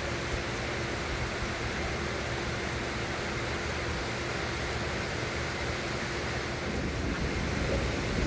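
Steady heavy rain, with a low rumble of thunder building near the end.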